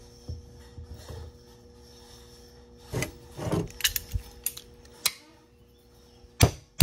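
Metal parts clink and scrape as a new bearing and a socket are set onto an alternator rotor's shaft. Near the end, two sharp hammer taps begin driving the bearing down the shaft.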